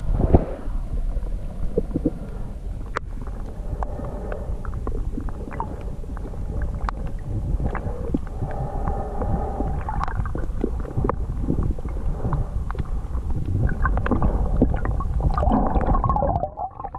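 Underwater ambience heard through a camera held below the surface: a muffled low rumble of moving water with scattered sharp clicks and crackles.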